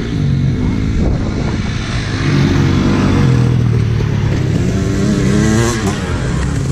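Dirt bike engines revving hard as the bikes accelerate up a sandy track, the engine note climbing and falling through the gears. The nearest bike passes close about six seconds in, its note dropping away as it goes by.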